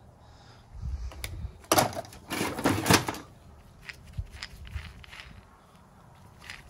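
Tools and packaged parts knocking and clicking against each other in a metal toolbox drawer as they are rummaged through and picked up. There is a cluster of louder knocks about two seconds in, then lighter scattered clicks.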